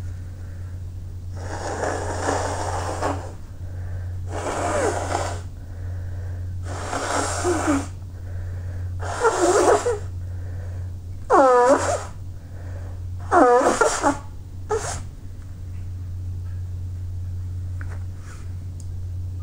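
A person sneezing over and over: about six sneezes roughly two seconds apart, the later ones loudest with a falling vocal pitch, then a short one. A steady low hum runs underneath.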